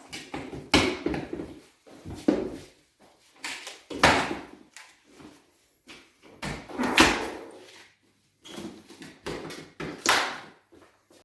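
Hard-shell double bass travel case being closed and secured: about five separate sharp knocks and clunks with handling noise between them.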